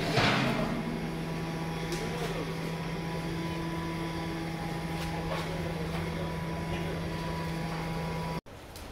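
Steady low mechanical hum with a faint higher whine over it, cutting off suddenly near the end.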